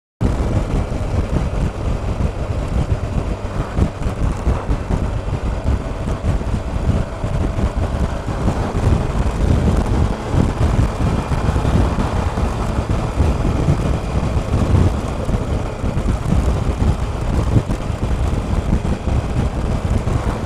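Wind rushing over the microphone of a camera on a moving motorcycle, with the Triumph Explorer's three-cylinder engine running faintly underneath.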